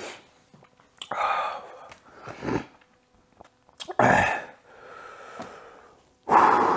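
A man's hard, breathy blowing out and sucking in of air through the mouth, about five gusts with pauses between them, the last one loudest. It comes from the burn of 2x-spicy fire noodles in his mouth.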